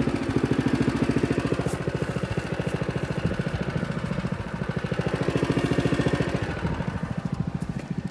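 Small gas engine of a Permagreen ride-on spreader running steadily while broadcasting grass seed, swelling a little louder in the middle.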